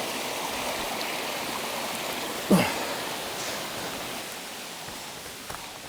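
Creek water rushing steadily over small cascades, easing slightly toward the end. A brief falling sound cuts through about two and a half seconds in.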